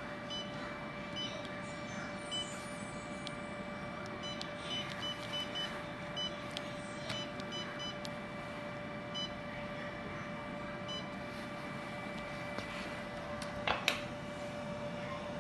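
Short electronic beeps from a diode laser therapy machine's touchscreen, one for each press of its setting buttons, about a dozen at irregular intervals. They sound over the machine's steady hum, with two sharper clicks near the end.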